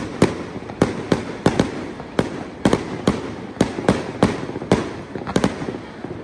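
Fireworks display going off in quick, irregular succession: sharp bangs about three a second over continuous crackling.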